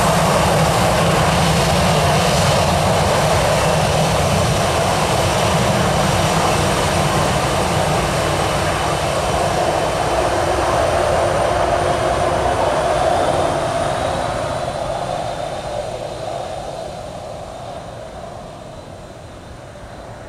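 Southwest Boeing 737's jet engines running as the airliner taxis and turns on the runway: a steady jet roar with a faint high whine, easing off and fading over the last few seconds.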